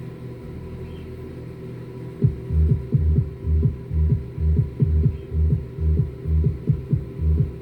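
Subwoofer bass test: a steady deep hum, then from about two seconds in, throbbing deep bass pulses about two per second.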